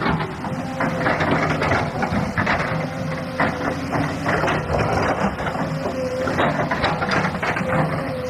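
Excavator diesel engine running under load, with a faint recurring hydraulic whine and irregular scraping and clatter of rock being worked.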